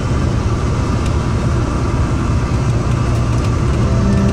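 A tour bus drives at road speed, heard from inside the cabin as a steady, loud low drone of engine and tyre noise.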